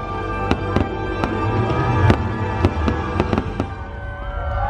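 Aerial fireworks display: a rapid, irregular series of sharp bangs and crackles with a low rumble, over loud music.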